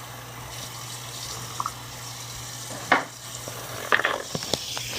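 Water running from a tap into a sink with a steady hiss. A few short sharp sounds cut in: one about three seconds in, then several close together around four seconds in.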